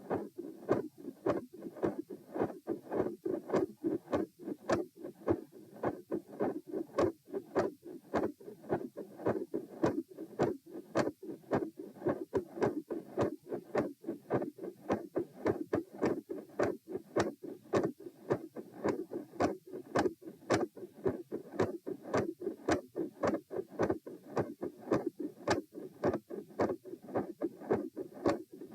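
Human heart sounds through a stethoscope: a fast, steady lub-dub beat, about 108 beats a minute, with a split second sound and a mid-systolic murmur noted by the uploader.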